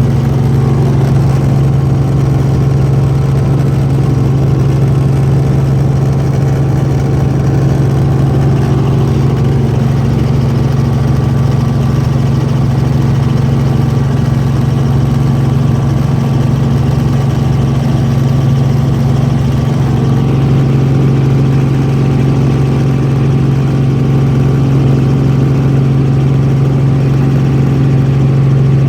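Sightseeing helicopter running: a loud, steady engine and rotor drone with a strong low hum that holds even throughout.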